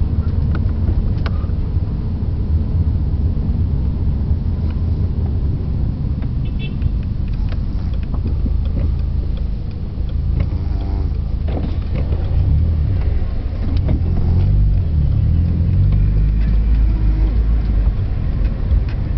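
A woman snoring in a moving car, under the steady low rumble of the car's engine and road noise, which is the louder sound and swells near the end.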